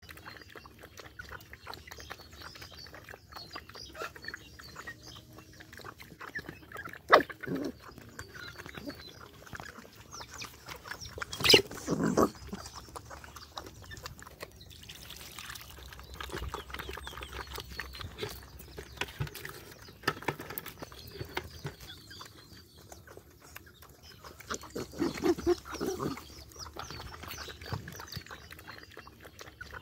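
Several dogs eating wet rice mush together: a steady mess of lapping, chewing and wet smacking, with snuffling grunts. A few short louder noises stand out, the loudest about twelve seconds in.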